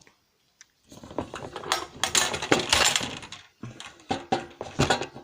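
Hard scrap phones and parts clattering and clinking as they are handled and moved about in a container, beginning about a second in with many sharp clicks.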